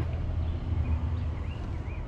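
Steady low rumble in the background, with a bird chirping a few times from about a second in.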